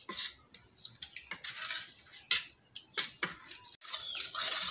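Metal spoon stirring thick cornstarch-and-water paste in a stainless steel pot, scraping and clicking irregularly against the pot as the lumps are beaten out.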